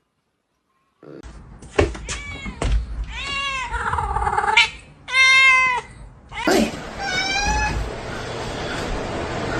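Domestic cat meowing three times, drawn-out calls that rise and fall in pitch, the middle one the loudest, with a few knocks in between. The sound starts about a second in, after silence.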